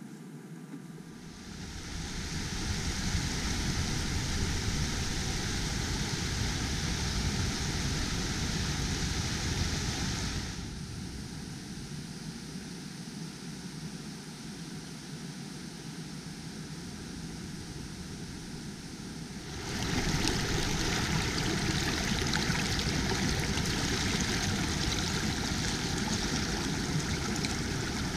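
Shallow forest stream rushing over stones, a steady hiss of flowing water. It drops to a quieter level for about nine seconds in the middle and comes back louder for the last part.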